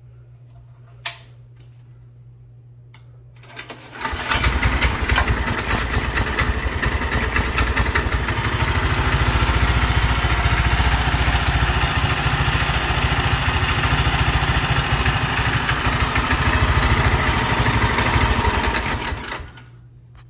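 A small single-cylinder engine on a homemade ATV starts about four seconds in, after a sharp click. It runs steadily for about fifteen seconds, then shuts off.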